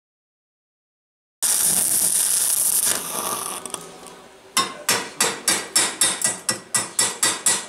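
Total silence for about a second and a half, then electric arc welding starts suddenly: a loud steady crackling hiss that dies away after a couple of seconds as a nut is welded to a steel pipe. Then quick sharp metal taps, about four a second, a hammer knocking at the weld.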